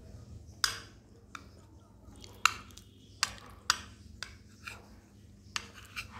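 A metal spoon clinking against a small bowl while scooping soaked bread. It gives about nine sharp, irregular clinks, each ringing briefly.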